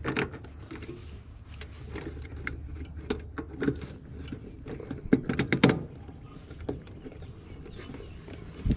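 Wires and connector pins being handled and pushed onto a heat pump's defrost control board: scattered clicks and rustles over a steady low background hum, with a cluster of louder clicks about five seconds in.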